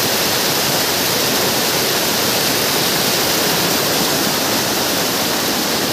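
Small waterfall cascading over rocks into a mountain stream: a steady, unbroken rush of water, heard close to the falling water.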